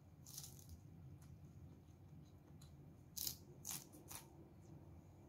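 Raw leafy greens crackling faintly: one short crisp rustle about half a second in, then three more about half a second apart a little past the middle, over near silence.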